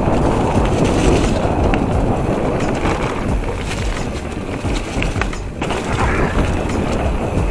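Mountain bike rolling fast down a dirt forest trail: a steady rush of tyres on dirt and fallen leaves, with short rattles from the bike over bumps.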